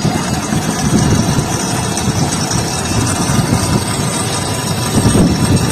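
A machine running steadily, with a rumbling, motor-like drone.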